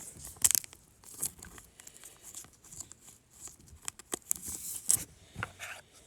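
A 2020 Panini Prestige Football card pack wrapper being torn open and crinkled: a run of short crackly rips and rustles, loudest about half a second in and again near five seconds.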